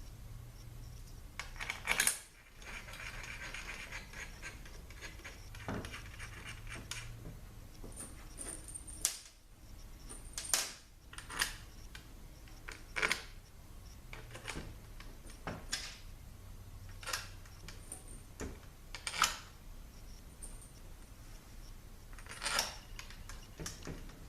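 Small metal clicks and clinks, about a dozen scattered and irregular, from bolts and hand tools handled on a Ford 6R80 transmission valve body as the lead frame bolts go in, with a faint rasping stretch in the first few seconds.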